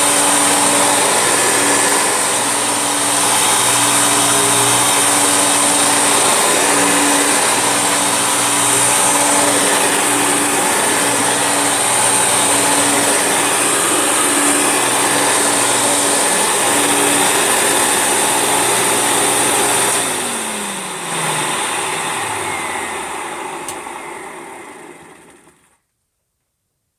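Vacuum cleaner motor running steadily with a high hiss, then switched off about twenty seconds in. Its hum slides down in pitch as the motor winds down, fading to silence a few seconds later.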